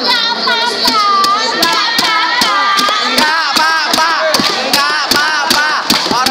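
A crowd of spectators shouting and cheering, many voices overlapping, with sharp claps or hits about three a second.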